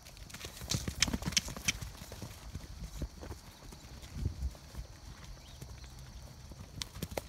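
Hoofbeats of several Morgan horses and foals trotting across grass pasture: irregular dull thuds and clicks, busiest about a second in.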